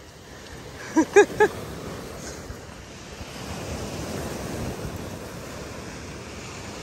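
Sea waves breaking and washing over a pebble beach, with wind on the microphone. About a second in, three short cries stand out above the surf.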